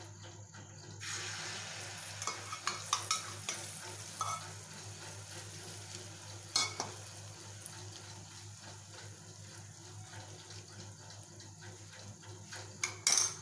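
Beaten egg mixture frying on a hot buttered tawa: a steady sizzle sets in about a second in. A few sharp clicks of a utensil against the pan sound through it.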